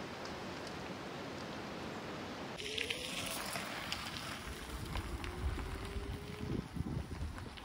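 Electric bikes passing on a gravel road: a thin motor whine rising slowly in pitch, then stopping, over tyres ticking on gravel and wind rumbling on the microphone. Before that, a steady outdoor hiss of wind.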